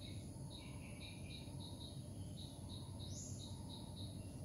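Faint bird calls: short high chirps repeating about three times a second, with a quick rising whistle once about three seconds in, over a low steady hum.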